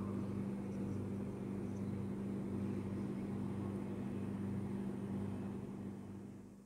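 Faint steady low hum of background noise with one held tone, fading out near the end.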